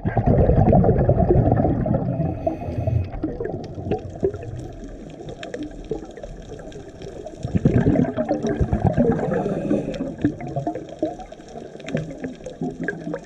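Underwater bubbling and gurgling from a scuba diver's regulator exhaust, heard through an underwater camera housing, with two loud surges of exhaled bubbles, at the start and about seven and a half seconds in, and quieter water noise between.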